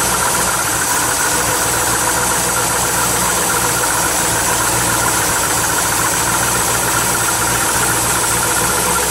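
1957 Chevrolet Bel Air's 283 cubic-inch V8 with Rochester mechanical fuel injection idling steadily, heard close up at the open engine bay.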